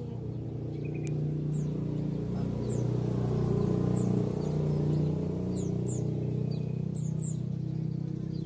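White-eyes (Zosterops) giving short, high, downward-sliding chirps, scattered a few at a time. Under them runs a louder steady low hum.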